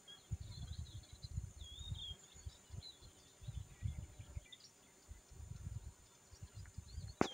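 Small birds chirping and warbling faintly in the trees, over an irregular low rumble of wind buffeting the microphone in gusts. A single sharp click comes at the very end.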